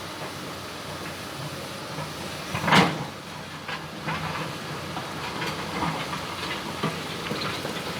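Excavator running while it moves stones in the riverbed, with one loud clunk a little under three seconds in and a few lighter knocks after.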